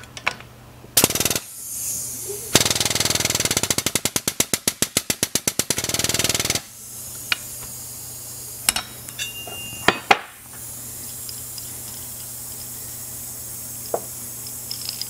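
Air-over-hydraulic pump running in rapid, even pulses for about four seconds and then stopping suddenly, building pressure in the ram that pulls a knockout punch through 1/8-inch steel. A short hiss of air comes about a second in as the air hose is connected, and a few sharp metal clicks follow the pump.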